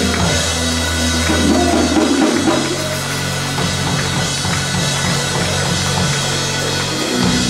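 Church band playing: a drum kit over held low chords that change to a new chord about two seconds in.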